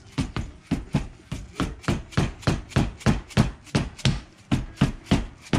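Orange mallet striking a CV axle joint over and over, a steady run of dull knocks about three a second.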